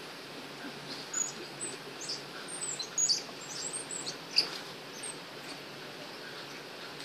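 A flurry of short, high-pitched animal chirps and twitters, some sliding up or down, from about a second in until around five seconds, over a steady background hiss.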